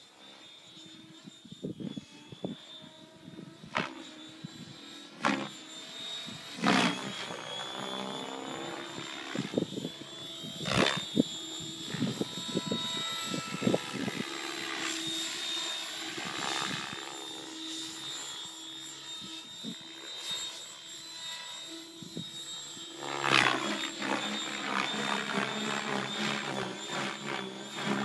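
Mikado Logo 600 electric radio-controlled helicopter flying aerobatics: its Spinblades 610 main rotor blades and electric motor give a high whine and a rotor noise that rise and fall in pitch and loudness as it swings through manoeuvres. Several sudden loud swells come through, the strongest about eleven seconds in and again near the end.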